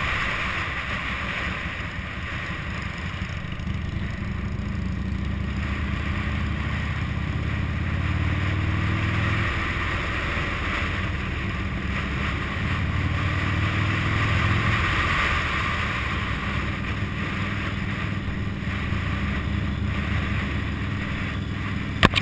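Cruiser motorcycle engine running under way, with wind rushing over the microphone; the engine note rises twice as the bike accelerates. A sharp click near the end.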